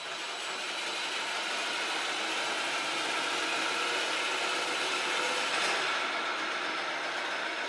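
A DeWALT drill running steadily to spin a lawnmower blade on a dynamic-balancing rig, a continuous whir. The blade carries a 2-gram dime on one tip as a deliberate unbalance for a test run.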